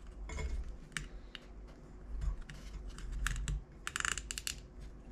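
Small clicks and taps of hands fastening a metal clip that holds the fuel line away from a diesel heater's exhaust pipe, with a short rasping rustle a little before four seconds in.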